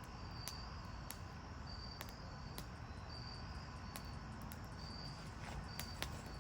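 Crickets chirping: short, high chirps repeating roughly once a second over a steady low background rumble, with a few sharp clicks scattered through.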